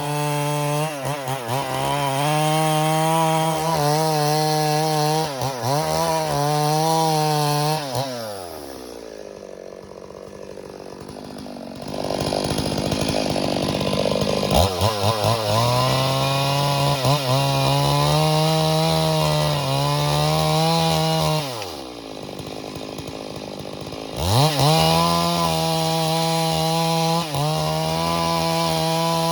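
Stihl MS 382 two-stroke chainsaw running at full throttle through dead wood, its engine note dipping briefly as the chain bites. Twice it falls back to idle for a few seconds, then revs up again to cut.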